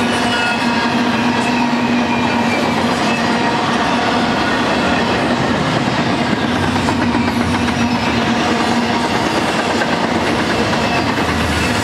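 Double-stack intermodal freight train's loaded well cars rolling past: a steady, loud rumble and clatter of steel wheels on the rails, with a faint steady tone running under it.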